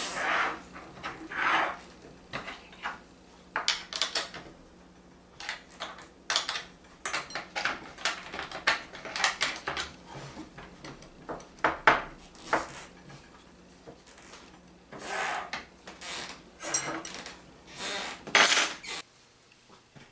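Small hard parts of a 3D printer kit, metal and acrylic pieces, screws and tools, being handled and set down: irregular clinks, clicks, knocks and short scrapes, ending about a second before the end.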